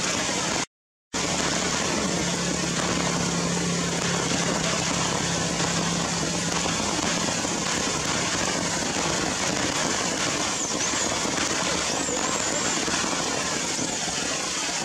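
Steady hiss of heavy rain, an even wash of noise with a crackly patter, broken by a brief dropout to silence about a second in.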